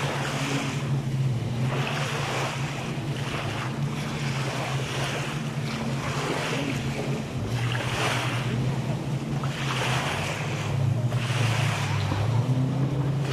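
Small waves washing up onto the sand close by, each wash a soft rush of surf and several in a row. A steady low hum runs underneath and wavers in pitch near the end.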